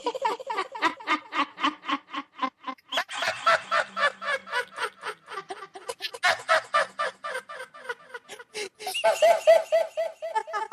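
A person's laughter, run through audio effects: a fast unbroken string of short 'ha' pulses, about five or six a second, whose pitch and timbre change every few seconds.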